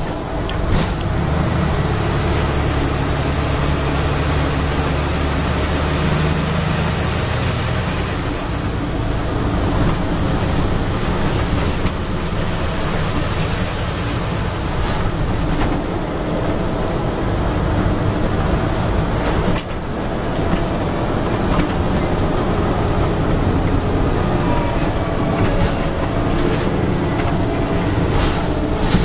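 Scania N94UB Omnidekka double-decker bus driving, heard from inside the passenger saloon: a steady low engine drone, strongest in the first several seconds, under road rumble, with a few knocks and rattles from the bodywork later on.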